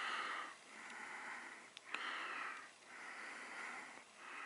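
A person breathing close to the microphone: faint, steady in-and-out breaths, each about a second long.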